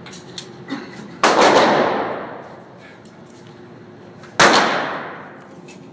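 Two handgun shots about three seconds apart, each followed by a long echo off the walls of an indoor shooting range.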